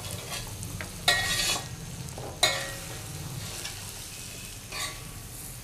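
A spoon stirring a pan of potato curry that sizzles as a flour-and-water slurry thickens it, with a few louder stirring strokes about a second in and about two and a half seconds in.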